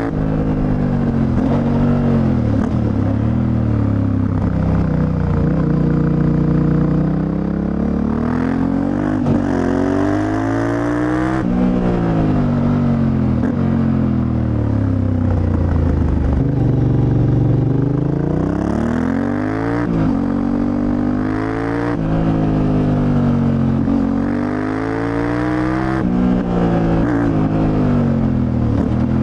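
Yamaha Ténéré 700's CP2 parallel-twin engine through an Akrapovič exhaust, revving up and falling back again and again as the bike accelerates and slows through bends, with gear changes that drop the pitch suddenly.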